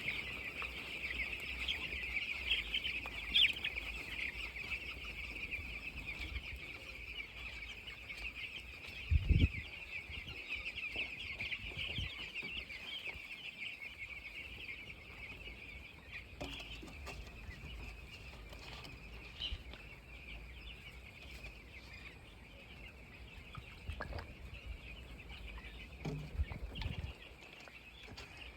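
A crowd of young chicks peeping continuously, many high chirps overlapping. A loud dull thump about nine seconds in, and a few fainter knocks near the end.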